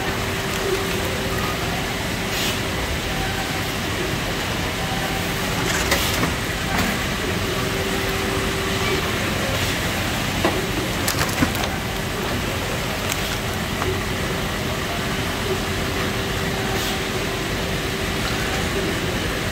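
Apple packing-line conveyor and machinery running steadily, a constant mechanical noise with a faint steady hum, broken by a few sharp clicks.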